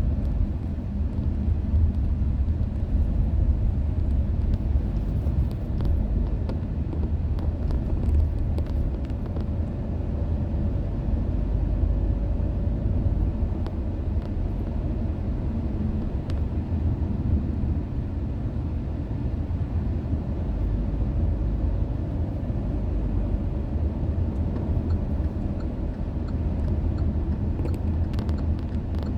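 Steady low rumble of a car driving, heard from inside the cabin: road and engine noise with a faint steady hum.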